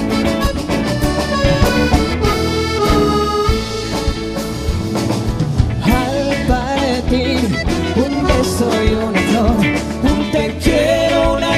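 Live band playing an instrumental passage between sung verses, with drum kit and electric guitar.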